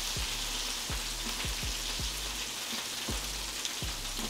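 Breaded chicken thighs frying in 350-degree oil in an electric fryer: a steady sizzling hiss, with soft low thumps now and then.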